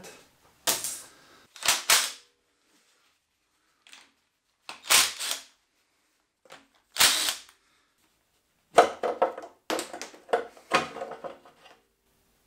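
Sharp clanks and knocks of metal parts and tools being handled while stripping a diesel engine: four separate knocks, then a quick run of them near the end.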